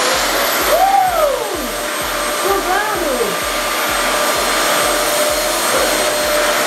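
Vacuum cleaner running steadily at full suction: a loud rush of air with a thin high whine on top, as its hose nozzle is worked over a shag rug.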